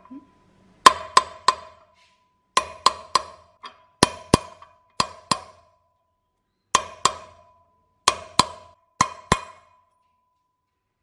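A hammer striking an impact socket used as a drift, driving a new wheel bearing into a KTM 350 EXC's rear hub. It gives about sixteen sharp metallic taps in pairs and threes, each leaving a short ringing tone, and they stop about nine and a half seconds in once the bearing is seated.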